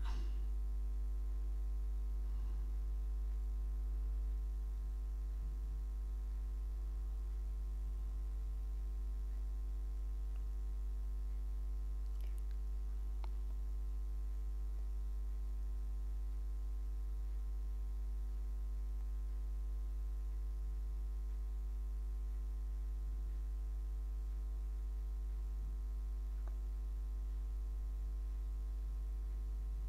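Steady low electrical hum with a stack of even overtones, unchanging throughout, with a few faint clicks partway through.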